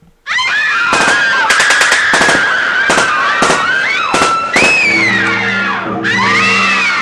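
A scattered volley of gunshots, several shots in quick succession, under high rising and falling screams. About five seconds in, a low sustained music chord comes in beneath them.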